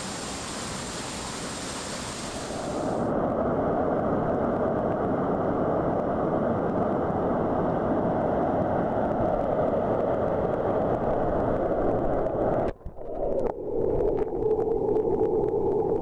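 Rushing water of a rocky mountain stream pouring over boulders, a steady loud rush. About three seconds in it turns fuller and deeper, and it drops out briefly about thirteen seconds in.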